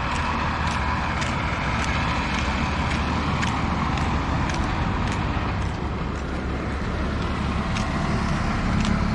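Road traffic noise: a steady rumble of passing cars and vans, with light ticks about twice a second over it.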